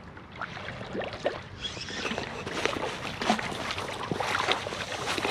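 Water sloshing and splashing with many small irregular splashes, growing busier and louder toward the end, as a hooked common carp is brought in to the shore.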